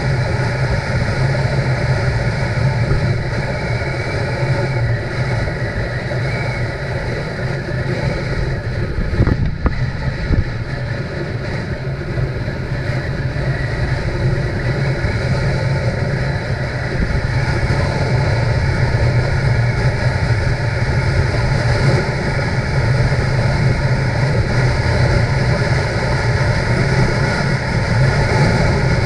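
Motorcycle engine running steadily at cruising speed, with wind rushing over the microphone. A brief thump comes about nine seconds in.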